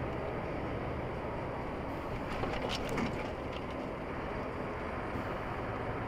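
Steady road and engine noise from a vehicle driving, with a brief run of sharp ticks or clicks about two and a half to three and a half seconds in.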